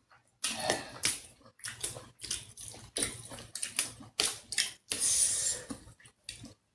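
Close-up eating sounds: a string of irregular crunches and clicks from chewing crisp food, with a short hissy crunch a little past the middle.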